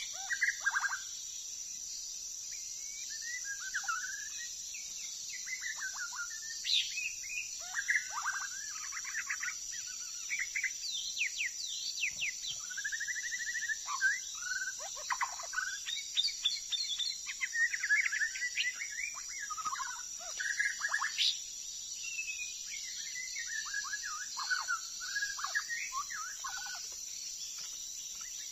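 A songbird singing a varied string of whistled phrases and quick note runs, phrase after phrase with short gaps, over a steady high-pitched drone.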